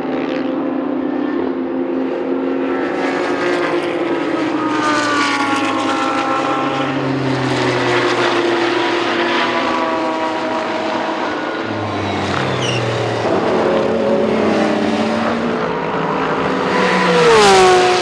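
Several GT race car engines running hard on a circuit, their notes falling and rising as the cars lift, brake and accelerate through the corners. Near the end one car passes close and loud, its pitch dropping sharply as it goes by.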